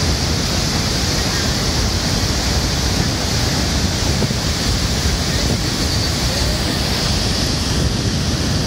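Iguazú Falls at the Devil's Throat: a massive volume of water plunging into the gorge, heard close up as a loud, steady roar of rushing water.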